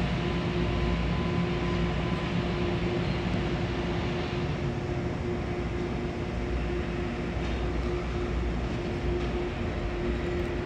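An MTA Metro-North M8 electric train approaching slowly along the platform track of an underground station: a steady rumble with a constant hum running under it.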